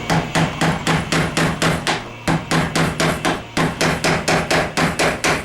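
Hammer blows on a clamped dirt bike chain, about four a second, with a short pause a little after two seconds, driving a pin out of a link to shorten the chain.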